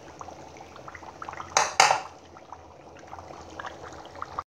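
Tomato-based shito sauce bubbling in an aluminium pot, with two sharp metal clinks about one and a half seconds in.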